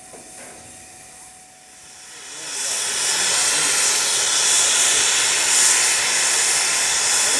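Steam hissing from beneath a 1932 Hunslet steam locomotive, starting about two and a half seconds in, rising quickly, then holding loud and steady.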